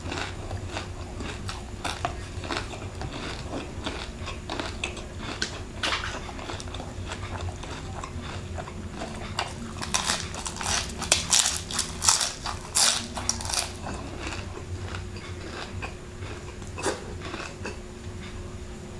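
Close-miked biting and chewing of crispy deep-fried chicken skin, a run of crisp crunches, loudest and densest about ten to thirteen seconds in.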